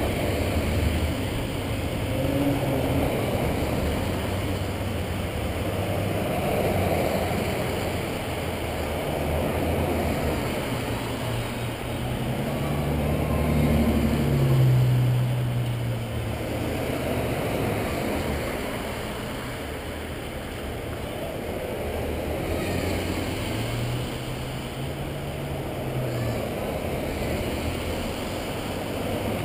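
Motor vehicles driving past one after another, their engines and tyres rising and fading as each one goes by, with the loudest pass about halfway through.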